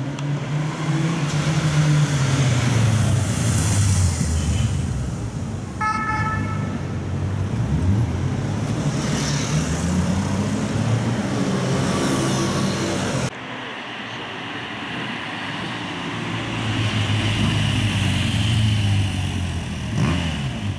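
Police motorcycles riding past in city traffic on an emergency response, their engines rising and falling in pitch as they accelerate, with a siren. A short horn note sounds about six seconds in, and the sound changes suddenly about two-thirds of the way through as a new pass begins.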